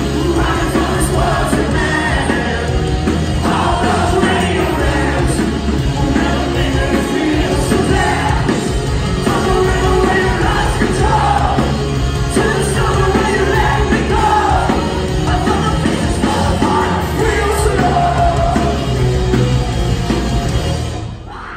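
Rock band playing live, with electric guitars, drums and a lead singer. The music stops abruptly near the end.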